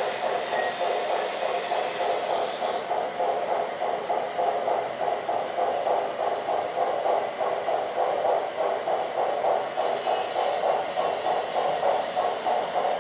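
Model train running around a layout with a steady, rhythmic clatter, and a high whine over the first few seconds and again near the end.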